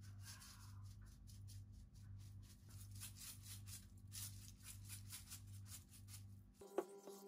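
Faint rattle of dried seasoning shaken from a jar onto raw chicken, then the rapid clicking of a hand spice grinder being twisted. A steady low hum lies underneath and cuts off near the end.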